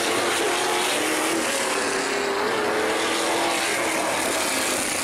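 Several sprint car engines running at once on the track, their pitches wavering up and down.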